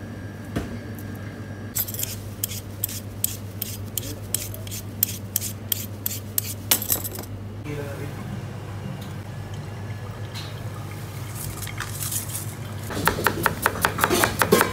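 Potatoes being peeled in a run of quick scraping strokes, then, near the end, a chef's knife chopping peeled potato into slices on a plastic cutting board in fast, even strikes. A steady low hum runs underneath.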